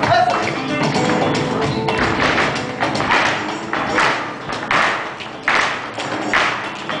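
Live flamenco music accompanying a dance. From about two seconds in, a sharp percussive beat sounds about every three-quarters of a second.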